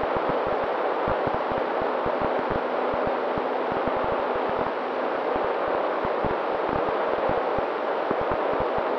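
Wind rushing over the onboard camera of a Mini Talon RC plane in flight, buffeting the microphone with many short low thumps, over a steady hum from its electric pusher motor and propeller.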